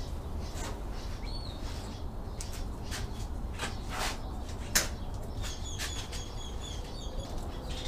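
Rustling and creaking clicks of a leather seat cover being worked down over a bench seat frame, with one sharp click about halfway through. Small birds chirp briefly early on and then in a run of quick high chirps in the second half.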